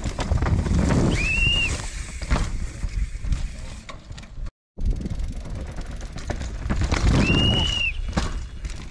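A downhill mountain bike passes twice over rough dirt, a swelling rush of tyre noise and clatter each time, with a short high squeal that rises and falls as it goes by. The sound drops out briefly between the two passes.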